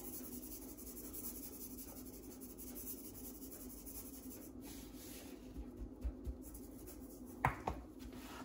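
Dry rub of kosher salt and coarse black pepper shaken from a small metal cup onto a raw pork butt and patted in by hand: faint dry sprinkling and rubbing, with a few soft thumps in the middle and two sharp taps close together near the end.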